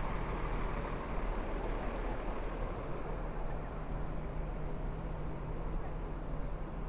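City street traffic: a steady wash of vehicle noise with a low, steady engine hum underneath.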